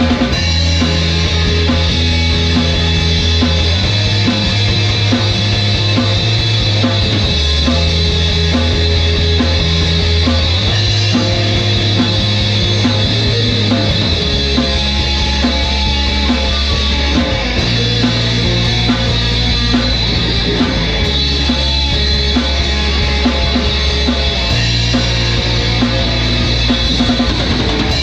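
Instrumental rock music with a drum kit and guitars, driven by a low bass line that shifts to a new note every three to four seconds.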